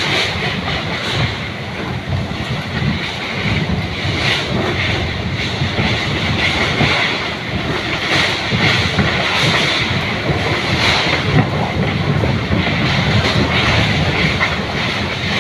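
Strong, gusty wind buffeting the microphone: a rough, uneven low rumble under a steady hiss, rising and falling in level.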